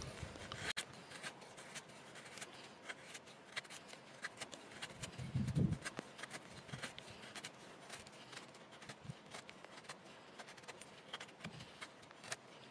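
A handmade full-tang bushcraft knife shaving thin curls down a wooden stick to make a feather stick: a run of short, quick scraping strokes of the blade through the wood. A low dull thump sounds about halfway through.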